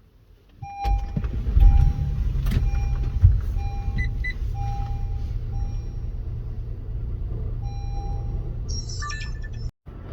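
Car engine starting about a second in and then idling with a steady low rumble, with a few knocks early on. A series of electronic beeps of varying length sounds over it, and the sound cuts out briefly near the end.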